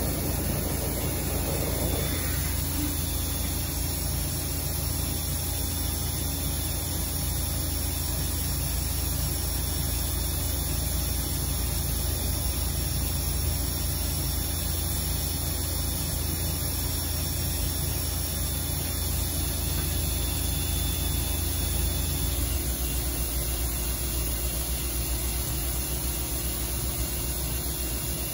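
Haas VF-2SSYT CNC vertical machining center running: a steady low hum under a haze of noise, with several faint steady high whining tones. The low hum changes slightly about three quarters of the way through.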